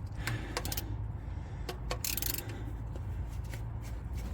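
Scattered metal clicks and clinks of a 14 mm socket wrench working the oil pan drain plug, with a short scraping rustle about two seconds in.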